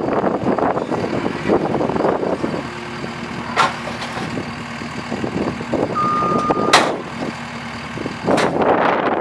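JCB skid steer's diesel engine running as the machine creeps forward, with a single short high beep about six seconds in and a couple of sharp clicks.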